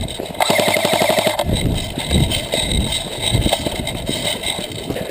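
An airsoft rifle firing a full-auto burst of about a second, a fast even rattle of roughly fifteen shots a second, followed by irregular thumps and rustling of gear and footsteps as the players run.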